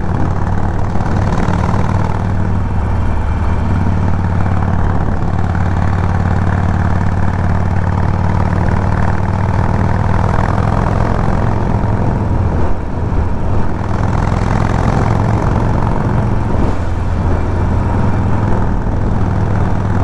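Harley-Davidson Sportster Forty-Eight's air-cooled 1200 cc V-twin running steadily while the bike is ridden at an even cruising speed. The engine note wavers briefly about two-thirds of the way through.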